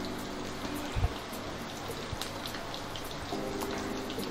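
Chicken kola urundai (minced chicken balls) deep-frying in oil on a low flame in an iron kadai: a steady crackling sizzle, with a light knock about a second in.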